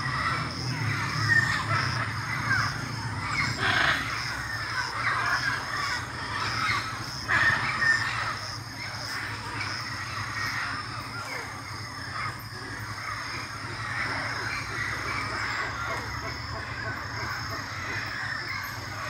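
A dense, continuous chorus of harsh squawking calls from parrots over a steady high-pitched drone, with a few louder squawks standing out along the way.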